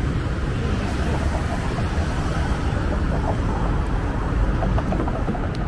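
City street traffic at an intersection: cars driving past, heard as a steady noisy rumble.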